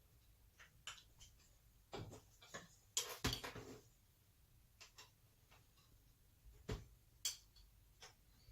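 Light clicks and small metal taps of a screwdriver and screws at the dashpot lid of an HD8 SU carburettor as the lid screws are done up, with a brief cluster of clatter about three seconds in and another sharp tap near the end.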